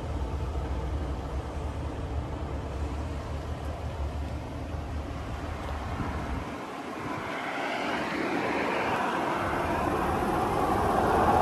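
Chevrolet Silverado pickup's engine idling, growing louder near the end as the open engine bay is approached.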